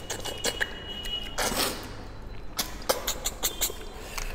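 Cooked snails being sucked and slurped out of their shells, with a scatter of sharp clicks and smacks and a couple of longer slurps around the middle.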